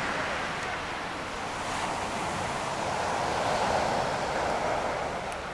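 Sea surf breaking and washing up a sandy beach: a steady rushing that swells about halfway through, then eases off.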